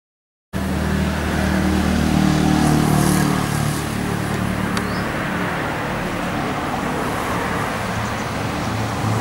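Steady road-traffic noise with a motor engine's low hum, cutting in suddenly about half a second in.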